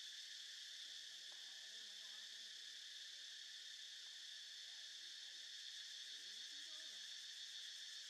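Faint, steady chorus of insects, an unbroken high-pitched buzz.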